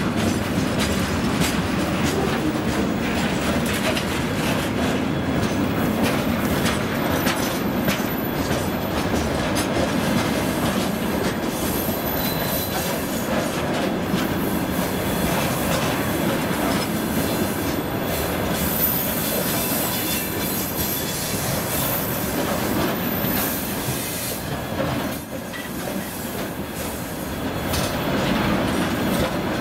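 Freight train cars (tank cars, then open hopper cars) rolling past close by: a steady rumble and clatter of steel wheels on the rails, with a thin high-pitched wheel squeal at times.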